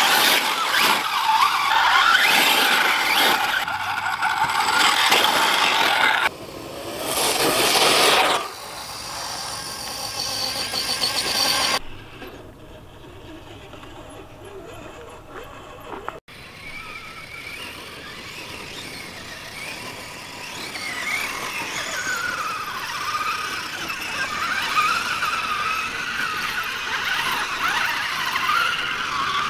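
Electric drivetrains of radio-controlled rock crawlers whining, the pitch rising and falling with throttle, broken into several takes with a quieter stretch about halfway through.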